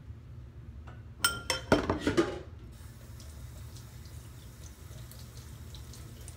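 A metal saucepan and utensils clatter in a kitchen sink: a quick run of clanks with short metallic ringing, then a faint steady hiss of running tap water with small clinks.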